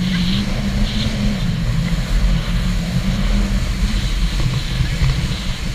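Jet ski running at speed across open water, its engine droning steadily under a buffeting rumble of wind on the microphone.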